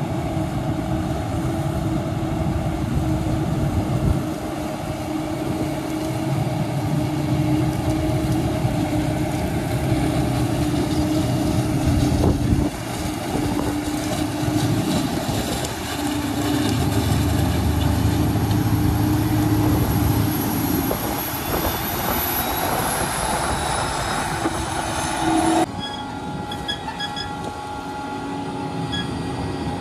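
Claas Jaguar 960 forage harvester and John Deere tractor running steadily together while chopping maize, with a constant droning hum and rough wind noise on the microphone. The sound changes abruptly about 26 seconds in.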